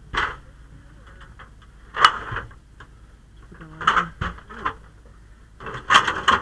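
Aluminium extension ladder clanking and rattling as it is handled and raised, with sharp metallic knocks near the start, about two seconds in, around four seconds and a cluster near the end.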